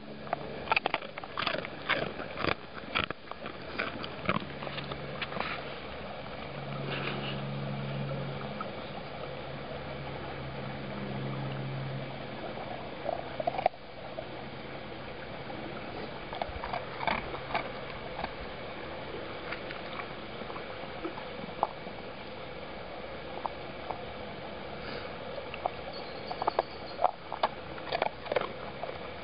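A Siberian husky crunching and chewing a hard dog biscuit: clusters of sharp crunches near the start, again around the middle and near the end. A low steady hum runs for several seconds in the first half.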